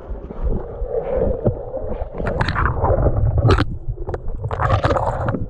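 Dry brush and twigs scraping and rustling against the camera as it is pushed low through undergrowth, over a steady low rumble of handling noise. A few sharper swishes stand out about two, three and a half, and five seconds in.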